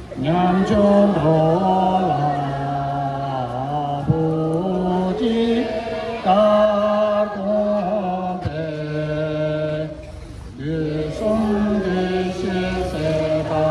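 Slow Tibetan prayer chanted by voices in long held notes that step up and down in pitch, with a short breath pause about ten seconds in.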